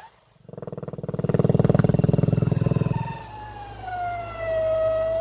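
Homemade strobe rocket in flight: its strobe composition gives a loud, rapid pulsing buzz for about two and a half seconds, then a whistling tone that glides down in pitch and settles steady. No bang from the warhead follows.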